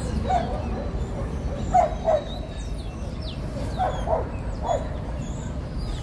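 A dog barking repeatedly, about six short barks, some in quick pairs, with faint high bird chirps over a steady low rumble.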